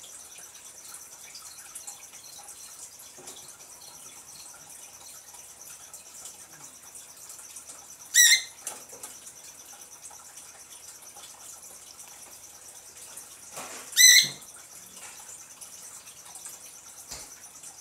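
Lutino cockatiel giving two short, loud chirping calls about six seconds apart, over a steady hiss.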